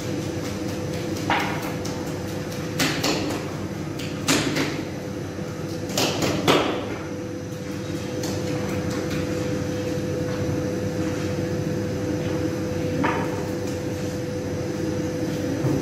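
Long-handled metal peels and rakes knocking and clattering against a sangak bakery's oven, several sharp strikes in the first seven seconds and one more near the end, over a steady hum.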